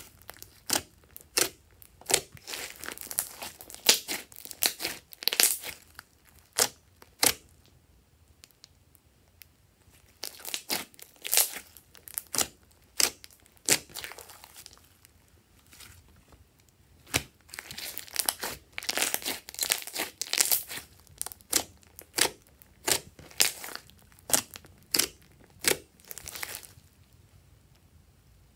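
Glossy slime being squished, kneaded and stretched by hand, giving irregular sharp crackles and pops. There are short quieter pauses between squeezes.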